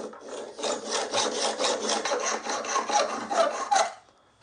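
Hacksaw cutting through a steel bolt held in a vise, fast back-and-forth scraping strokes, taking the threaded end off to leave the plain shank. The sawing stops about four seconds in as the cut finishes.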